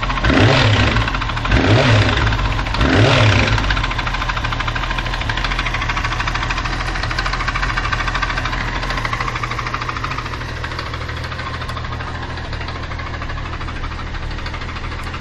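Honda CBR929RR inline-four engine blipped three times in quick succession, then settling back to a steady idle. It runs with a knock from inside the engine that the owner is puzzled by.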